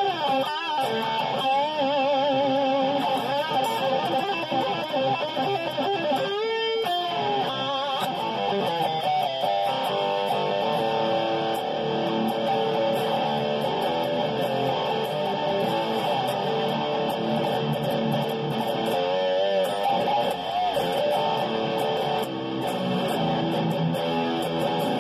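Seven-string electric guitar, a hybrid of a Schecter Damien Elite 7 and a Dean ML with a Floyd Rose, played unaccompanied as a continuous riff and lead line. Held notes carry a wide vibrato, with a fast wobble in pitch a little over six seconds in.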